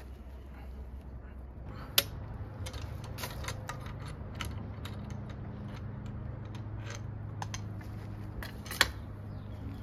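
Wooden gaffe lever and crossbow being worked by hand: a sharp click about two seconds in, then a run of lighter clicks and knocks, and another sharp click near the end.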